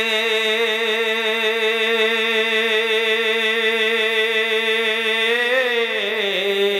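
A man's voice, unaccompanied, holding one long sung note of a Bangla devotional song, with a slight wavering vibrato. About five and a half seconds in, the note bends and slides down, then trails off at the end.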